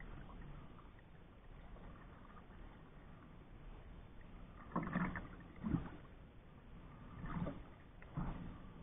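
Canoe paddle strokes in calm lake water: a quiet first half, then four soft splashes and drips in the second half as the blade dips and pulls.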